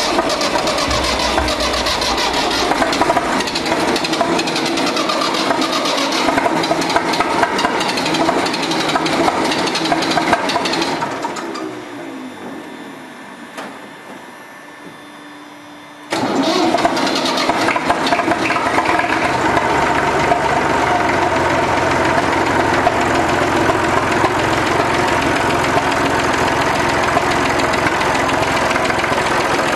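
Massey Ferguson 35's three-cylinder Perkins diesel engine running just after a cold start at −14 °C. About eleven seconds in it slows with a falling pitch and fades, then about sixteen seconds in it is suddenly running loudly again and stays steady.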